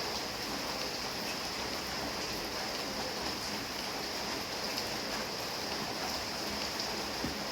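Steady rain falling in an even hiss, with scattered single drops ticking through it.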